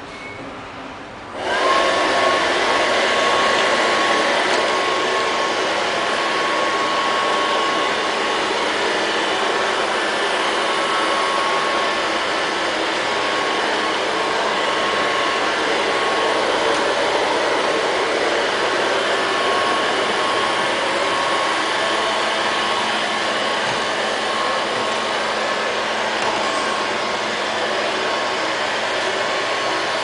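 LL-302 robot vacuum cleaner's motor starting up about a second and a half in, then running steadily: an even rush of air with a thin high whine over it.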